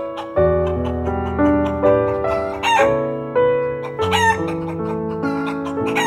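Piano music of held notes with a chicken sound effect laid over it: a few short chicken calls, about two and a half seconds in, again about four seconds in, and near the end.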